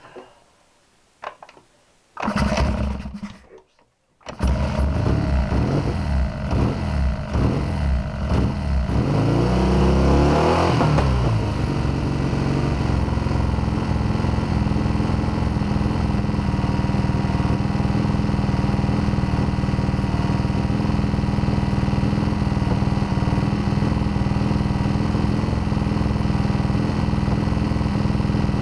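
Triumph Bonneville T120 650 cc parallel-twin engine starting: it fires briefly about two seconds in and stops, then catches about four seconds in. It runs unevenly at first, rises and falls in revs, then settles to a steady run. It is being run for a strobe-light ignition timing check.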